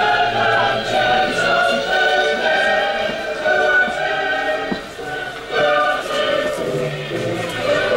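A choir singing, several voices holding long sung notes.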